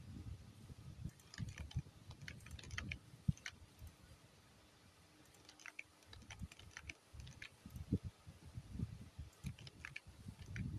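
Faint irregular clicking and soft low thumps in scattered clusters, with a quieter stretch of about two seconds in the middle.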